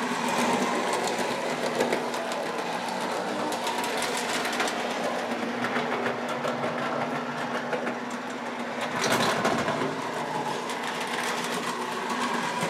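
Lionel 232 Alco O-gauge toy diesel locomotive running on tinplate three-rail track: its electric motor whirs with a steady hum while the wheels clatter rapidly over the rail joints. The sound swells briefly about nine seconds in.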